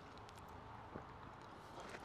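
Near quiet: a faint low outdoor background with a few small, soft clicks.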